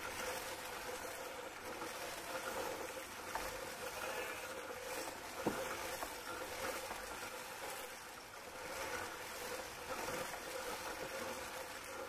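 Electric sheep-shearing handpiece running steadily as it cuts the fleece off a sheep, a constant hum with one sharp click about halfway through.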